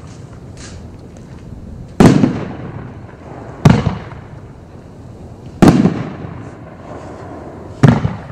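TB107 Two-Faced 500-gram aerial firework cake firing its shots: four loud booms about two seconds apart. Each boom trails off in a rumbling echo.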